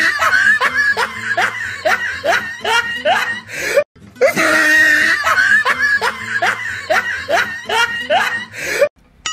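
Canned laughter sound effect: the same clip of quick rising laughs plays twice back to back over low background music.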